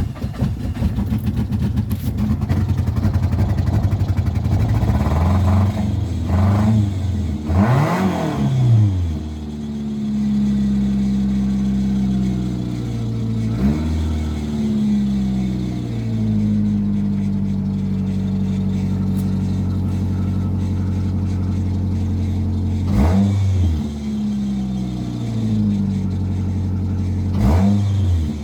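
Nissan Altima engine running after a fuel pump replacement and a battery fix. It starts roughly at first, then runs steadily, with its pitch swinging up and down a few times as the engine is revved.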